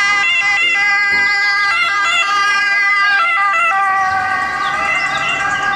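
Ambulance siren wailing on an emergency run, steady pitched tones that jump between notes a few times.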